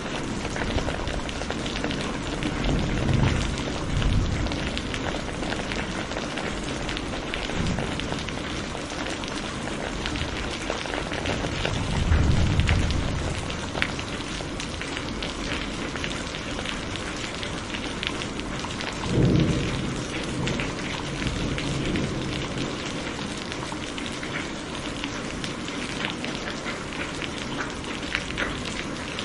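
Steady heavy rain falling and pattering on surfaces, thick with individual drop ticks. A few short low rumbles swell up and fade, about 3 and 4 seconds in, around 12 seconds and around 19 seconds.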